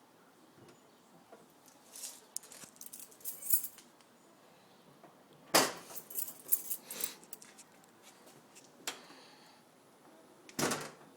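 A series of small clinks and rattles from hard objects being handled. They come in short clusters separated by pauses, and the loudest cluster falls a little past halfway.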